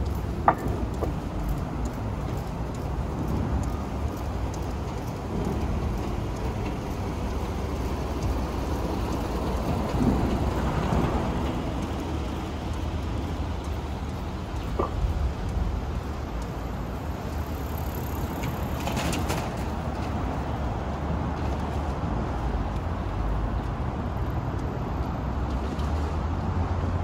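Steady city street ambience: a continuous hiss over a low rumble, with a few faint clicks.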